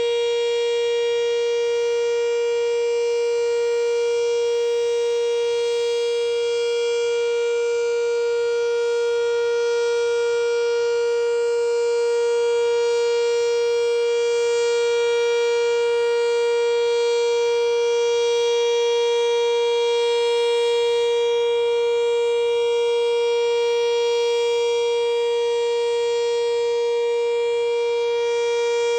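Sentry outdoor warning siren, which the owner identifies as a 3V8-H, sounding a loud, steady tone that holds its pitch throughout, during a routine siren test.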